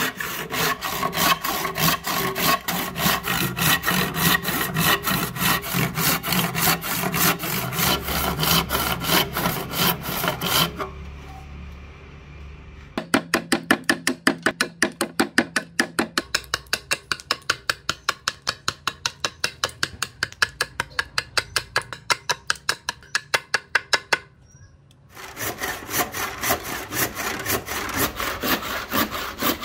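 Hand saw cutting ebony in quick, even strokes; after about ten seconds it stops, and after a short pause a run of rapid, regular strokes of a hand tool chips away the waste between the saw kerfs, louder at first and then fainter. After a brief silence near the end, sawing starts again.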